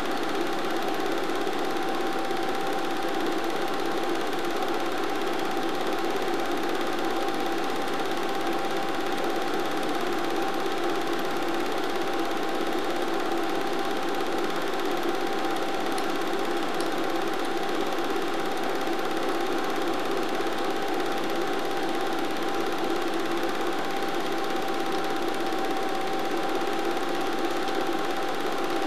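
Film projector running during the transfer of silent cine footage: a steady mechanical whirr with a constant hum that does not change.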